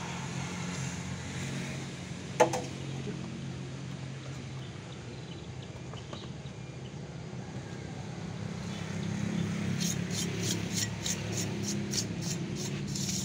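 A hand tool scraping and brushing over the surface of a freshly cast concrete culvert ring in quick, repeated strokes, beginning about ten seconds in, over a low steady hum. About two and a half seconds in there is one sharp knock with a short ring.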